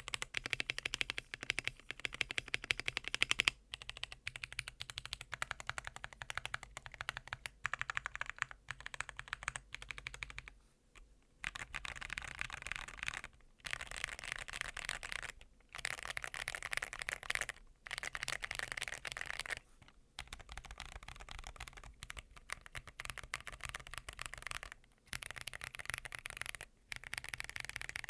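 Typing on a KBD67 Lite custom mechanical keyboard with lightly lubed Holy Panda tactile switches on a polycarbonate plate: quick runs of clacking keystrokes in bursts, broken by short pauses.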